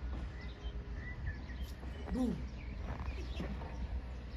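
Small birds chirping over a steady low rumble, with one short, lower-pitched arching call about two seconds in.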